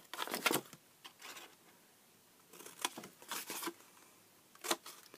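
Scissors cutting through cardstock in a series of short snips, with the sheet rustling as it is handled between cuts.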